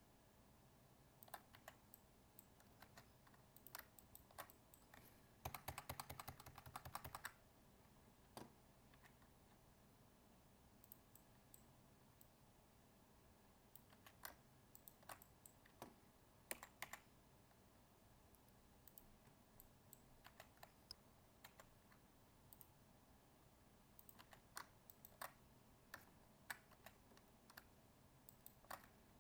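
Faint, scattered clicks of a computer keyboard and mouse, with a quick run of rapid clicks about five to seven seconds in.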